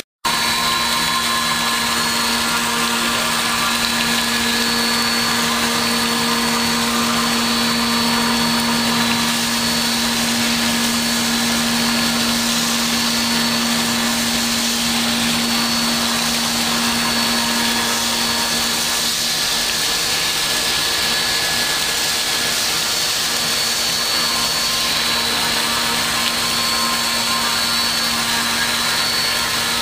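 Five-axis CNC machine running a cut: a steady machining noise with several steady whining tones over a hiss. A low hum under it stops a little past halfway.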